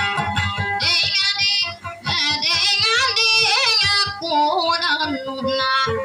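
A woman singing a dayunday song in a high voice with wavering, ornamented phrases, over guitar accompaniment, heard through a PA system. Her voice comes in about a second in.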